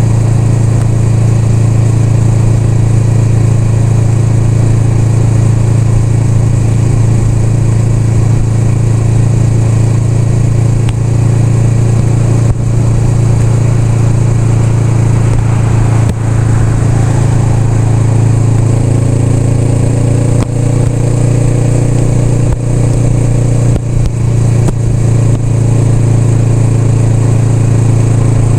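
Honda Rebel 500's parallel-twin engine running steadily, its low engine note holding level throughout, with a few brief dips in loudness in the second half.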